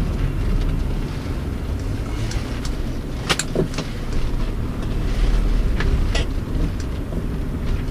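Car interior while driving slowly: a steady low rumble of engine and tyres, with a few scattered light ticks.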